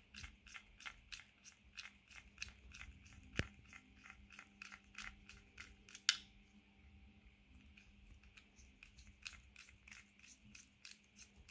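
Faint, irregular crackling and clicking of a small flat-head screwdriver scraping and rolling old double-sided adhesive tape off the inside of a Garmin Edge 1030's plastic frame, a few small clicks a second. Two sharper clicks stand out, about a third of the way in and about halfway.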